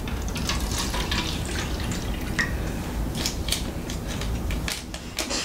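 A drink being poured from a bottle into small cups, with irregular splashes and drips.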